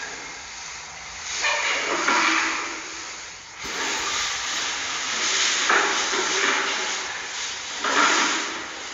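A loud, rough hiss of noise that swells and falls in stretches, jumping up sharply about one and a half seconds in and again about three and a half seconds in.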